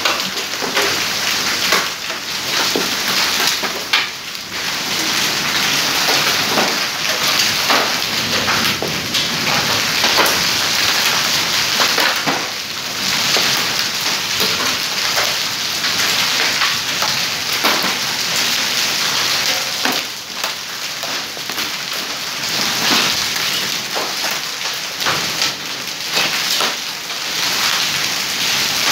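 Hail falling with heavy rain, pelting paving and walls: a dense, steady hiss scattered with sharp clicks and knocks of individual hailstones striking.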